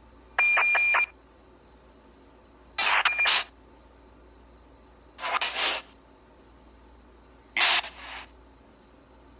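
Spirit box putting out short bursts of radio noise about every two and a half seconds, four in all, over a faint steady high pulsing tone. The first burst holds a quick run of clicks that sounds like knocking.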